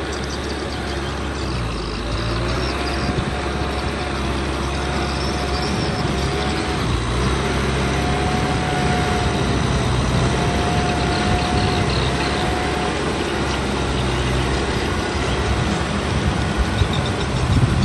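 Kubota M6040 tractor's diesel engine running steadily, with a wavering whine above the engine note. It gets a little louder about two seconds in.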